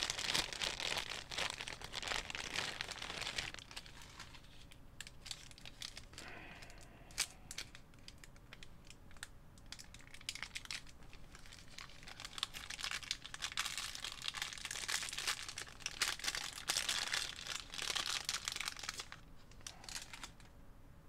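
Crinkly packaging being handled and opened by hand, in two long spells of crackling with small clicks and quieter handling between: a replacement video-deck reel spool being unwrapped.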